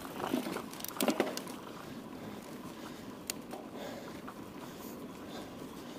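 Mountain bike riding along a trail: steady tyre and wind noise, with a few knocks and rattles from the bike and a single sharp click about three seconds in.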